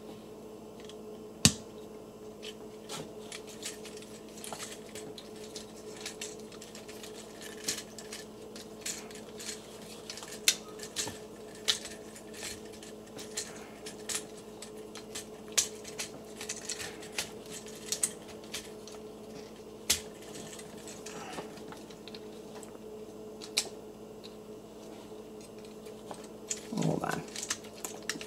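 Irregular plastic clicks and snaps of a Transformers action figure's ratcheting joints and parts as it is being transformed by hand, over a steady low hum.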